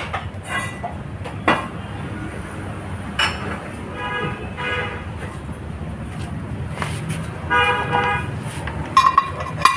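Metal knocks and clanks as a motorcycle wheel rim is handled and lifted out of a workshop press, over a steady low rumble. Short vehicle-horn toots sound three times, around four, eight and nine seconds in.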